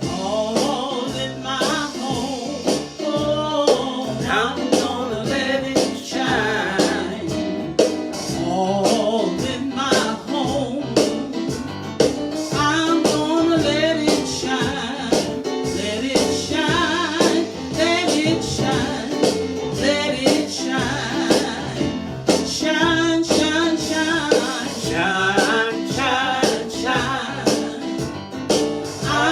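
Live gospel praise-and-worship music: a band playing with a singing voice over it, at a steady beat.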